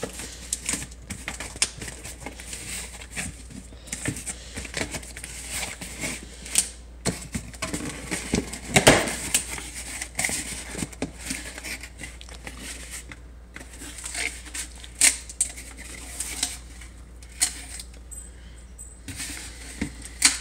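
Cardboard shipping box being pulled open and handled by hand: flaps scraping and rustling, with many small clicks and crinkles. The loudest, longest scrape comes about nine seconds in.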